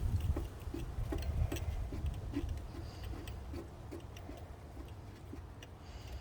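3/8-inch socket ratchet clicking in an even run of about three clicks a second, turning a new spark plug down its long threads into the engine's cylinder head; the clicks grow fainter towards the end. Wind rumbles low underneath.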